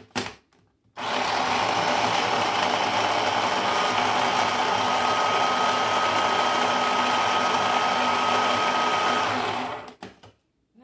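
Electric mini food chopper running steadily with a faint steady whine, grinding cooked chicken breast fine, after a few short clicks as its bowl is handled. It starts about a second in and cuts off near the end.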